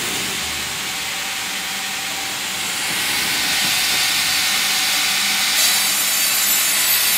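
FİMAKSAN Fİ.120/HDG hydraulic vertical band saw running as a log on the carriage is fed through the blade, a steady hiss of the band cutting wood. It grows louder about three seconds in, and a high whine joins near the end.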